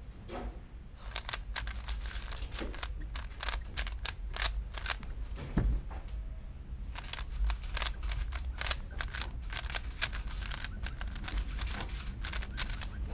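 A plastic 3x3 speedcube being turned quickly by hand: runs of rapid, irregular clicks as the layers snap round, with a short pause in the turning about halfway through.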